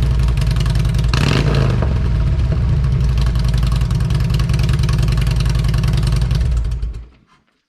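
Harley-Davidson Street Glide V-twin running through 4.5-inch Shark Road slip-on mufflers: a steady idle with a short blip of the throttle about a second in, then the engine is switched off near the end.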